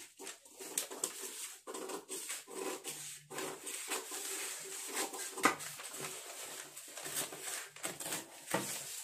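Large tailoring scissors snipping through a paper pattern sheet, with the paper rustling as it is lifted and turned. A bird coos in the background.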